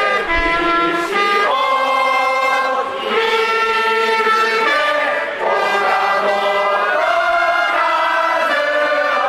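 A Japanese pro-baseball cheering section's trumpets play a batter's cheer-song melody in held, steady notes, and a crowd sings along.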